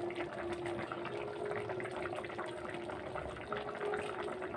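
Spiced curry gravy boiling in an aluminium kadai: a steady patter of small bubbles popping, over a faint steady hum.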